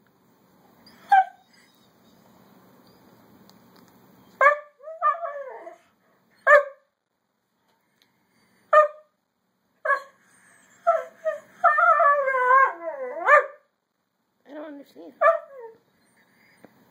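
A brindle dog vocalizing in complaint: short, sharp bark-like yips every second or two, then a long, wavering whining howl that slides down in pitch about two-thirds of the way through, then a few more short yips. The owner takes it for an upset dog 'talking'.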